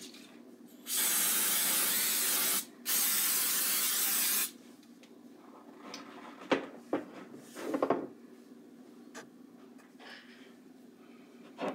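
Aerosol cooking spray hissing in two steady bursts of nearly two seconds each as the waffle maker's plates are greased. A few light knocks follow a few seconds later.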